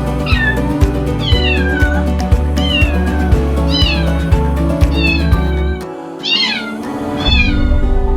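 Kitten meowing again and again, short high calls that each fall in pitch, about one a second. Background music with a steady beat runs underneath, dropping out briefly about six seconds in.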